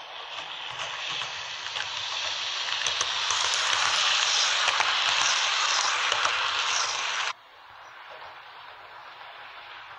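H0-scale model train with double-deck coaches rolling along the track: a hissing rumble of wheels on the rails and the motor, growing louder as it passes close. It cuts off suddenly about seven seconds in, leaving a quieter hiss.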